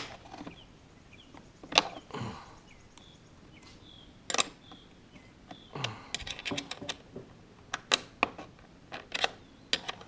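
Scattered clicks and clinks from a Power Smart lopper saw's chain, bar and plastic housing being handled while the chain is refitted, with a quick run of clicks about six seconds in.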